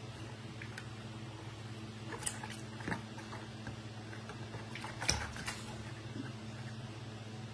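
A baby monkey scrambling on the rim of a plastic basin of water and dropping back in, giving a few small splashes and knocks, the loudest about five seconds in. A steady low hum runs underneath.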